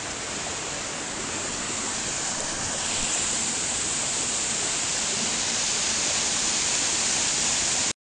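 Small waterfall: water spilling over a wooden weir and splashing down onto boulders, a steady rushing hiss that grows louder about three seconds in.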